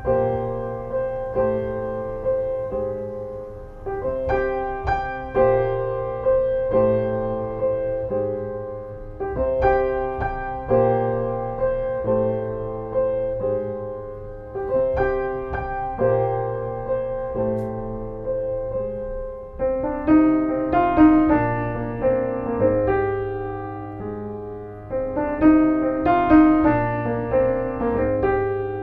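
Background piano music: struck notes and chords in a steady repeating pattern, growing busier with more high notes about twenty seconds in.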